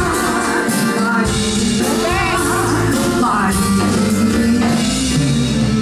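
Live band playing at a sound check: steady bass notes and drums, with a singer's voice winding through a melody in the middle.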